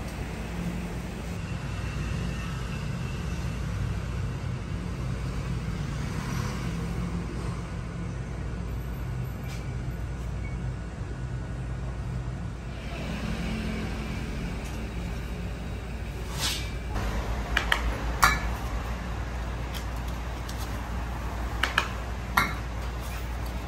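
Steady low machine hum of a bakery workroom, with a few sharp clinks in the last third as metal tart tins are handled on a baking tray.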